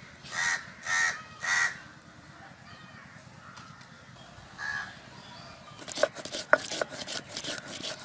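A crow caws three times in quick succession, then once more about five seconds in. From about six seconds in, a stone roller scrapes rapidly back and forth over a flat grinding stone (shil-nora), grinding spices to a paste.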